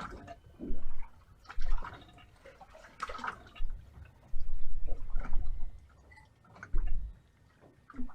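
Water lapping and slapping irregularly against the hull of a drifting bay boat, in uneven splashes with bursts of low rumble between them.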